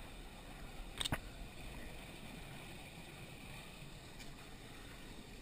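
Small stream running steadily, with two sharp clicks close together about a second in.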